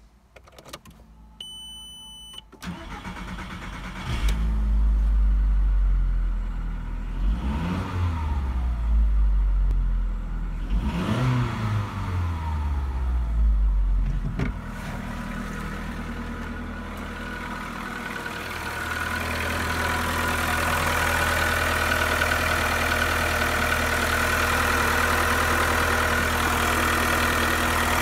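VW Golf 4's 1.4 BCA four-cylinder petrol engine being started. A single beep sounds, then the starter cranks briefly and the engine catches. It is revved twice, rising and falling, then settles to a steady idle. Near the end it is heard louder and with more hiss, up close from the engine bay.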